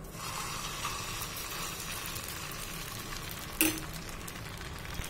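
Moriya and sabudana uttapam batter sizzling steadily in hot oil on a non-stick pan as it is spread into a round, with one brief knock about three and a half seconds in.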